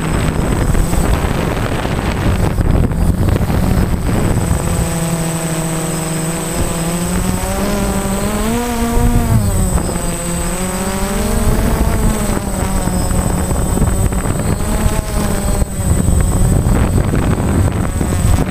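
Wind rushing over an FPV RC aircraft's onboard microphone, with the aircraft's motor and propeller droning and a faint steady high whine. The motor's pitch comes up about a third of the way in, rises to a peak near the middle, then falls and fades as the aircraft comes down low.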